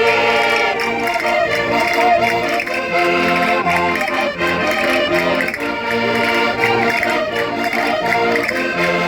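Concertinas playing a vira, the Minho folk dance tune: a reedy melody over bass chords that repeat in a steady dance beat.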